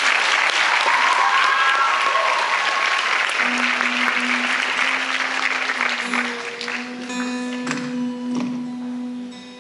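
Audience applause, with a short whistle about a second in. The applause fades as acoustic guitar notes ring out steadily, with a few strums near the end.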